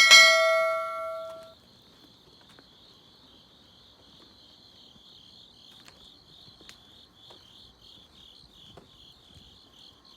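A loud, bell-like ding rings out at the start and fades over about a second and a half. After it, crickets chirp steadily at a high pitch in fast pulses.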